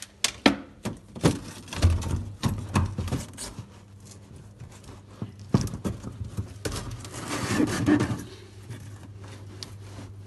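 Hands-on work on a refrigerator: a run of sharp knocks and clicks of parts being handled, then a longer scraping stretch near the end, over a low steady hum.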